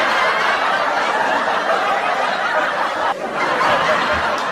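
Several people laughing and snickering together, with a short break about three seconds in.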